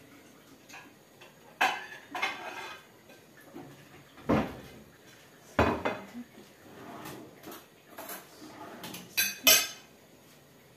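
Dishes and cutlery clinking: a plate set down on a kitchen countertop and a utensil laid on it, in a string of about seven sharp clinks a second or so apart, the loudest near the end.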